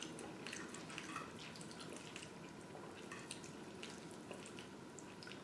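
Faint, wet chewing and mouth clicks from eating creamy pasta Alfredo, a scatter of small irregular ticks.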